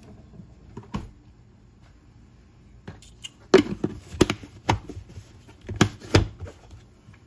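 Sharp clicks and taps of spice containers and a measuring spoon being handled on a kitchen counter: one about a second in, then a quick cluster of about seven in the second half.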